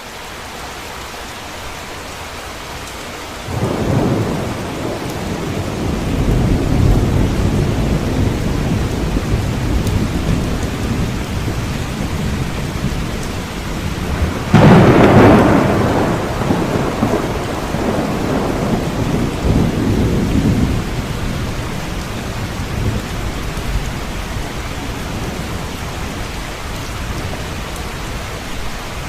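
Steady rain with thunder. A low rumble rolls in about three and a half seconds in, and a louder, sharper thunderclap about halfway through rumbles on for several seconds before fading back under the rain.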